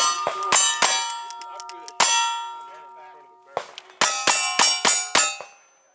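Single-action revolver shots at steel plate targets, each hit followed by the plate ringing. There are three shots near the start, one about two seconds in, and then a quick string of five near the end.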